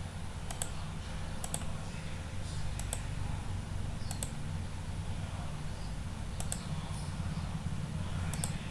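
Six separate clicks of a computer mouse, each a quick press-and-release pair, one to two seconds apart, over a steady low hum.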